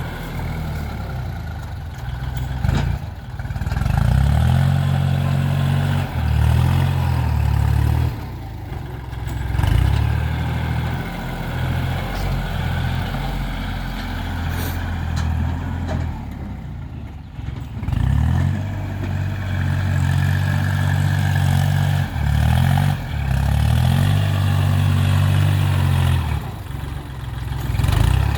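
Heavy diesel engine of earthmoving machinery running, its note rising and falling every few seconds as it works under changing load.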